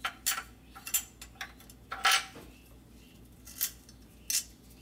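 Irregular metal clinks and taps as a steel bolt is handled and fitted by hand into a bolt hole on the transmission bell housing, the loudest about two seconds in.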